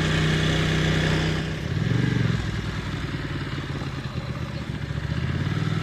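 Ducati Monster's L-twin engine running under way, with a brief rise in revs about two seconds in and the engine pulling harder near the end.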